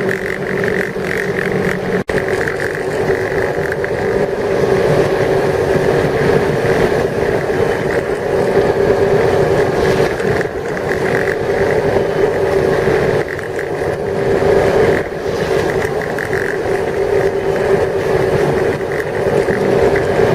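Motorboat engine running steadily at speed, with wind and water noise. The sound drops out for an instant about two seconds in.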